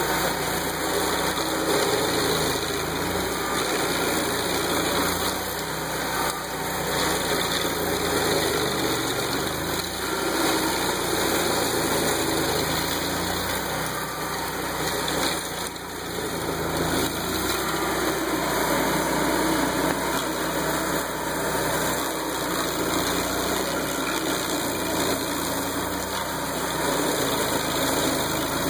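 Stump grinder running, its engine under steady load as the cutter wheel chews into the stump and soil, the sound swelling and easing a little as the cutter is swung back and forth.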